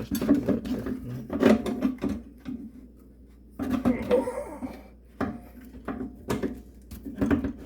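A garbage disposal's dishwasher knockout plug being struck out of the inlet: a series of sharp knocks, in two runs with a pause between them.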